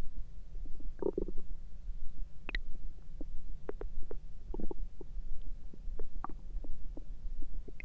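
A person's stomach gurgling and rumbling: a steady low rumble with many scattered short pops, and longer gurgles about a second in and again around the middle.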